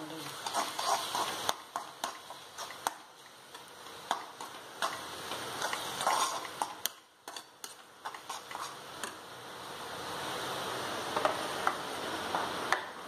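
A spatula stirring onion-tomato masala in a frying pan, with repeated clicks and scrapes against the pan over a low sizzle of frying. It dips quieter for a moment about halfway through.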